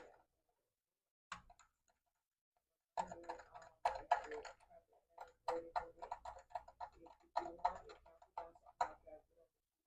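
Ratchet wrench clicking in quick runs as it turns a new spark plug into the cylinder head of a Chrysler 300's 3.5 V6, with a single click about a second in and steady clicking from about three seconds in.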